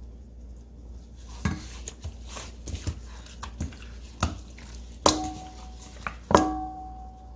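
A spice jar knocking against a stainless steel mixing bowl while raw chicken is seasoned. There is a string of scattered taps, and the two loudest, about five and six seconds in, leave the bowl ringing briefly.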